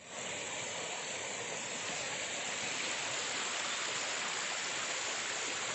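Steady rushing of flowing water, like a stream or small waterfall.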